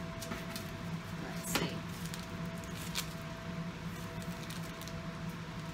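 A wrapped package of paper catalogs being picked up and handled: a few light crinkles and taps, the sharpest about one and a half seconds in, over a steady low hum.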